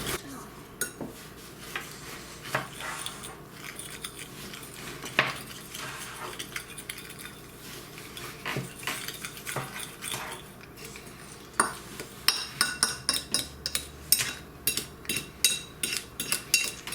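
Spoon stirring a dry breadcrumb, garlic, salt and Parmesan mix in a bowl, with scattered clinks and scrapes against the bowl. From about twelve seconds in the stirring speeds up into regular clinks, about three a second.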